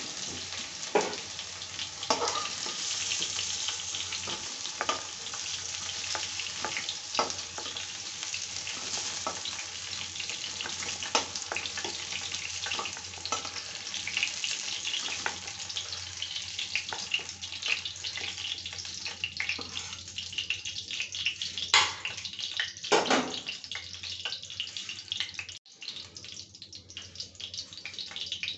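Oil sizzling steadily in an iron kadhai as pointed gourd pieces deep-fry, with a metal slotted spoon scraping and knocking against the pan as the pieces are stirred and lifted out. The sizzle thins out in the last few seconds, once the pan is nearly empty.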